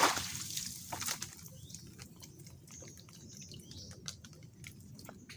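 Water dripping and trickling off a bamboo crab trap as it is lifted out of a shallow creek, dying away within about a second. Then faint clicks and rustles of the bamboo slats being handled.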